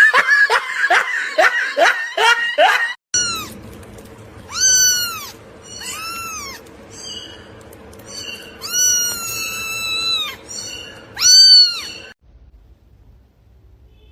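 A cat meowing: several high-pitched meows rising and falling in pitch, one of them long and drawn out, before it goes quiet near the end. Before that, for the first three seconds or so, a quick run of short, loud, falling-pitched cries, about three a second, that cuts off abruptly.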